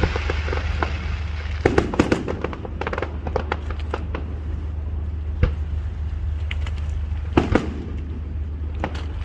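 Fireworks going off in a quick, irregular string of crackling pops and bangs. There are dense clusters of pops about two seconds in and again near seven and a half seconds, and one deep boom about five and a half seconds in. A steady low rumble runs underneath.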